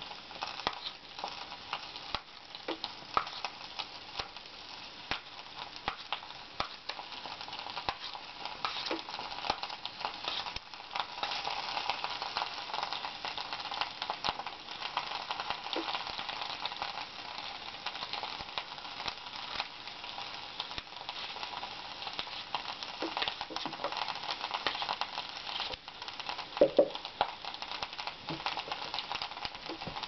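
Food sizzling and hissing steadily in a frying pan cooked with a little water instead of oil, with frequent small clicks and taps of a knife cutting apple slices that drop into the pan.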